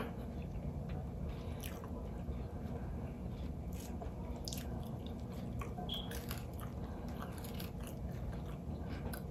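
Close-miked eating sounds: quiet chewing and scattered soft, crunchy clicks as a piece of battered fried catfish is torn apart by hand and eaten.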